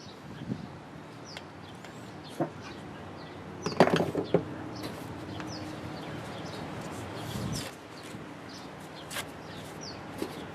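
Clicks and knocks of a metal can of Formby's tung oil finish being worked open, its lid pried off, loudest in a quick cluster of raps about four seconds in. Small birds chirp in the background.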